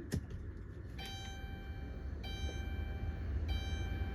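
2012 Chrysler Town and Country's dashboard warning chime ringing repeatedly with the ignition switched on, one chime about every 1.25 seconds starting about a second in, over a steady low hum. A short click comes just before the chimes begin.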